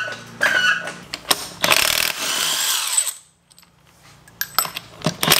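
A handheld power wrench spins a lug nut off a Jeep Wrangler's front wheel in a whirring burst of about a second and a half. Before it there is a short knock, and near the end there are a few light clicks before the tool starts up again.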